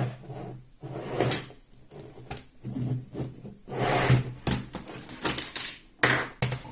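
LIECTROUX B6009 robot vacuum cleaner running, with irregular knocks and short rattles a second or so apart and a low hum that comes and goes.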